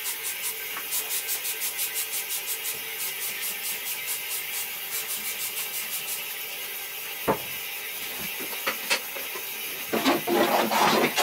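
Scrubbing inside a ceramic toilet bowl, rhythmic strokes about four a second, giving way about six seconds in to the steady rush of the toilet flushing. Near the end, louder wet scrubbing and splashing in the bowl water.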